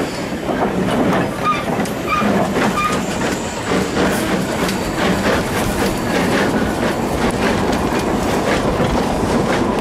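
Kerr-Stuart 'Brazil' class 0-4-2 saddle tank steam locomotive 'Melior' passing close, with steam hissing from its cylinders. Its narrow-gauge coaches follow, wheels clicking and clattering over the rail joints.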